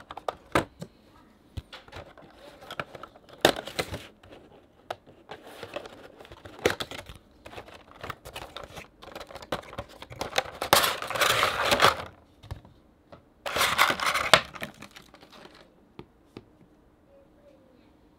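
Cardboard Funko Pop box being opened by hand: short clicks, taps and scrapes of the cardboard, then two longer stretches of loud plastic crinkling and rustling as the packaging comes out, the second ending about four seconds before the end.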